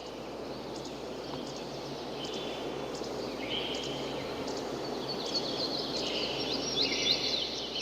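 Outdoor ambience: a steady background hiss with birds chirping, the quick chirps thickest in the second half, and stretches of a high trilling buzz coming and going.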